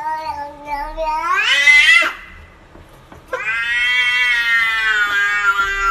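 A tabby-and-white cat gives two long, drawn-out meows. The first rises in pitch toward its end. After a short pause comes a second, longer call held fairly steady and sounding like a human 'whyyy'.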